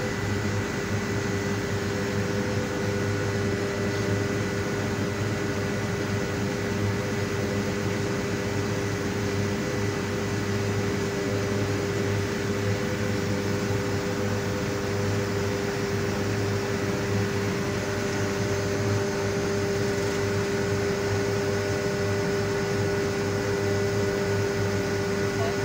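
Steady mechanical drone of a septic-tank suction machine's engine and vacuum pump running, with a constant low hum and a few steady tones.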